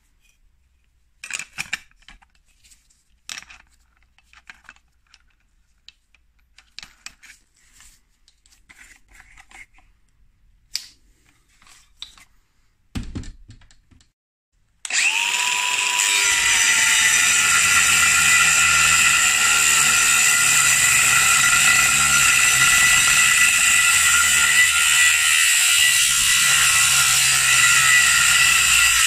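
Scattered light clicks and knocks, then about halfway through a DeWalt cordless angle grinder with a thin cutting disc spins up with a brief rising whine and runs steadily, cutting into the aluminium intake manifold's runners to square them off.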